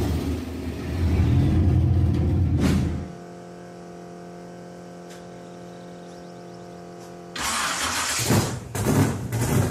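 A Chevelle muscle car's engine at high revs during a tyre-smoking burnout for the first three seconds, then cut off abruptly. A few seconds of quiet, steady hum of held tones follow, and about seven seconds in a second Chevelle's engine fires loudly and runs with a choppy, surging idle and blips of throttle.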